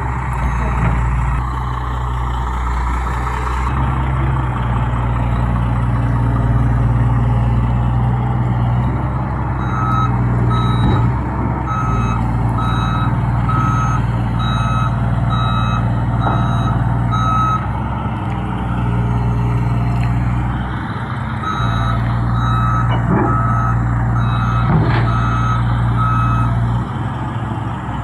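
Heavy diesel engine running steadily, with a warning alarm beeping in two runs of about three beeps every two seconds.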